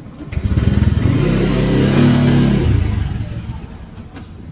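Engine of a passing vehicle: it swells up shortly after the start, runs loud for a couple of seconds with its pitch creeping upward, then fades away.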